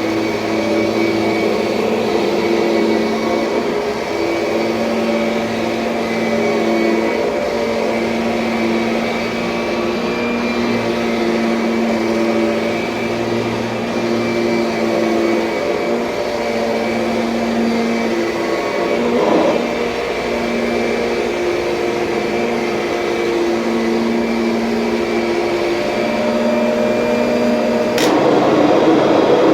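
Kirby Sentria upright vacuum cleaner's motor running with a steady hum, its pitch wavering slightly as it is pushed. Near the end a click, after which the sound changes to a louder rushing noise.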